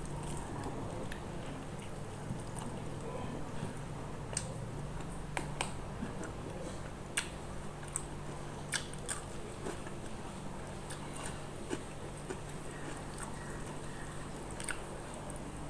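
Close-up eating sounds: chewing with scattered sharp mouth clicks and smacks, over a steady low hum.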